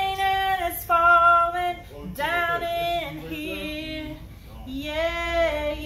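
A woman singing a gospel song unaccompanied, holding long notes that bend in pitch, with a short break about two seconds in and again about four seconds in.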